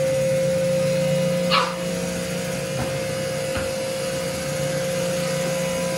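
Sun Joe 3200 electric pressure washer running with a steady hum and hiss as its spray spins through a Ridgid 18-inch surface cleaner on concrete. A brief sharp high sound cuts in about a second and a half in.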